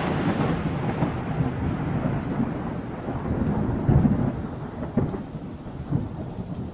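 Thunder-and-rain sound effect: a rumbling, hissing wash that fades away, with three low swells of rumble about a second apart in the second half.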